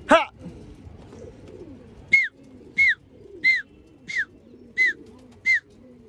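Domestic pigeons cooing softly in the background. A short rising call comes right at the start, then from about two seconds in a steady run of six clear, high whistled notes, each curving downward, about every two-thirds of a second.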